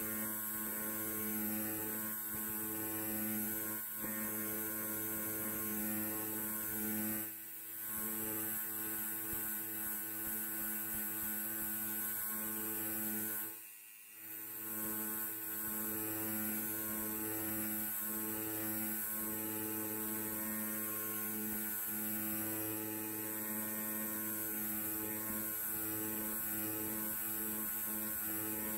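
Electric hair clipper running with a steady buzz. The buzz dips briefly twice, about seven seconds in and again, more deeply, about fourteen seconds in.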